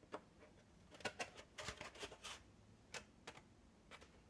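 Faint, scattered clicks and taps of small tabs being pushed into slots in a 3D-printed lightweight PLA wing and the hollow plastic part being handled.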